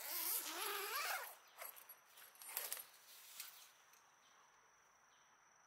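Tent door zipper pulled open in one long stroke of about a second, its pitch wavering as it runs round the door, then a few short rustles. A steady high insect trill runs underneath.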